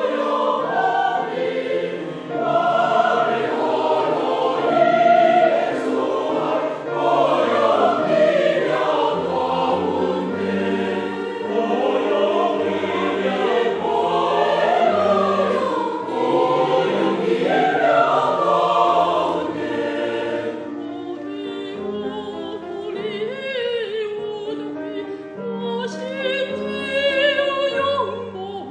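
Mixed choir singing a Chinese hymn in parts over a stepping bass accompaniment. About twenty seconds in the full choir breaks off, and a quieter, thinner passage of accompaniment carries on.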